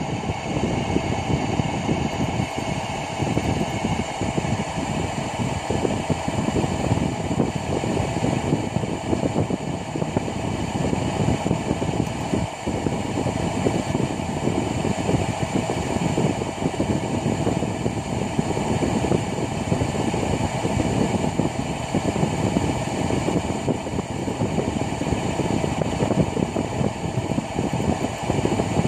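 Steady engine-room machinery drone, an even low rumble with several constant hums above it and no change in pitch or level, as played by a ship engine-room simulator.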